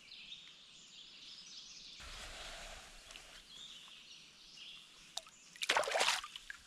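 Quiet lakeside ambience with faint bird chirps, then a brief loud burst of sharp, noisy knocks and rustles near the end.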